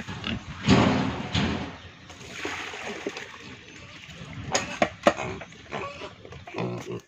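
Pigs grunting as they are fed, with wet feed splashing into their trough; the loudest burst comes about a second in, with a few sharp knocks near the end.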